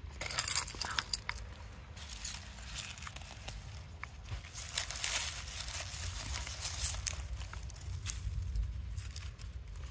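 Onion stalks, dry leaves and grass rustling and crackling as onions are handled and pulled from sandy soil by hand, with a few sharper crackles about half a second to a second in.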